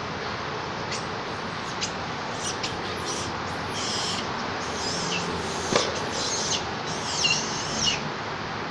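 A series of short, high-pitched squeaky animal calls, some sliding down in pitch, coming every half second or so for about seven seconds over a steady background hiss.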